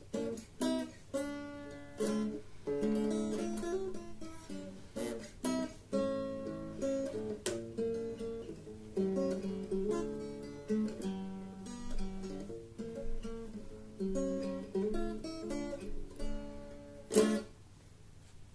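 Solo acoustic guitar: a run of picked and strummed chords, ending about a second before the end on one loud final strum that rings out.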